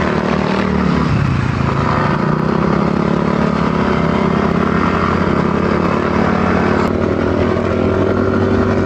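Motorcycle engine running at a steady speed on the move, with a steady rush of noise over it.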